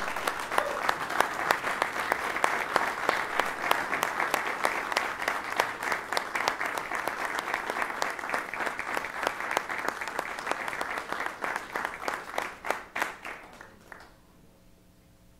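Audience applauding, a dense steady clapping that dies away about a second before the end.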